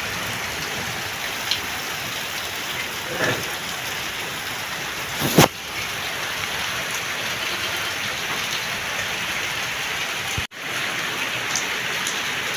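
Steady rain falling, an even hiss, with one sharp knock about five seconds in.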